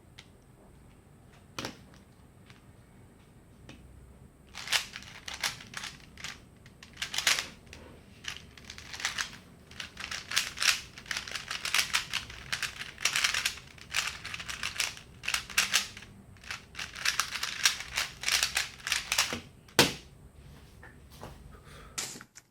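GAN 357 3x3 plastic speedcube being solved: a fast, irregular clatter of layer turns from about four seconds in until near the end, with a few single clicks before and after.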